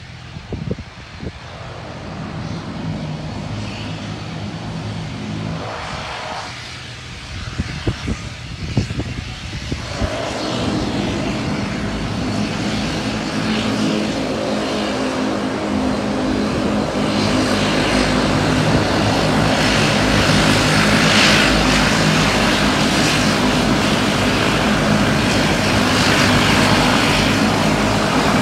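Twin turboprop airliner's engines and propellers running as it taxis, a steady drone with low humming tones that grows louder through the first twenty seconds as the aircraft comes nearer. A few short knocks sound in the first ten seconds.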